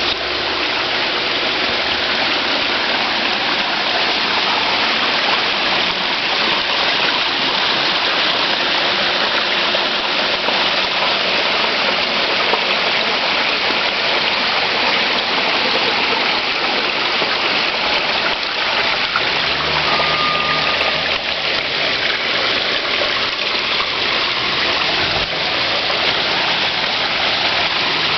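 Water from a built garden waterfall splashing and rushing down into its pond as a steady, even hiss.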